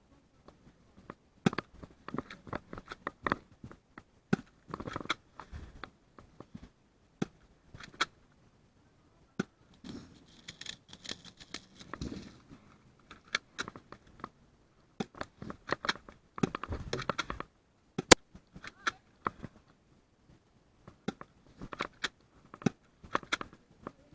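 Irregular scuffs, scrapes, rustles and clicks, like a player moving with gear in a small room, with a hissing rustle for a couple of seconds near the middle and one sharp click about eighteen seconds in.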